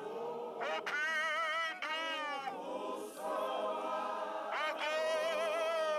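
A group singing a hymn without instruments, led by men's voices, with long wavering held notes.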